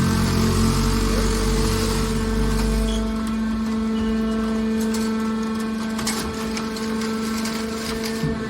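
Hydraulic baler for aluminium cans running with a steady motor hum. A heavy low rumble drops away about three seconds in, and a few sharp clicks and knocks follow.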